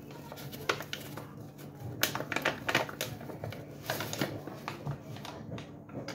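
Paper flour bag rustling and a measuring cup scraping and clicking as all-purpose flour is scooped out and levelled: short, irregular clicks and scrapes in several clusters, the loudest about two to three seconds in.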